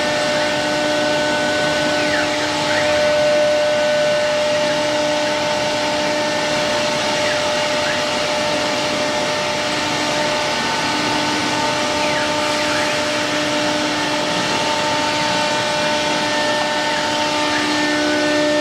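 CNC router running, its spindle giving a steady whine of several held tones over an even hiss.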